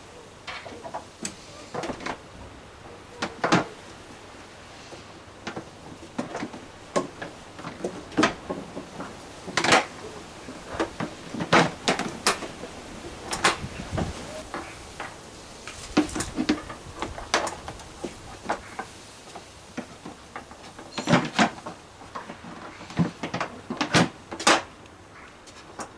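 Scattered knocks, clicks and rattles of hard plastic and metal parts being handled on a scooter: the underseat storage bucket lifted and a metal grab rail fitted in place.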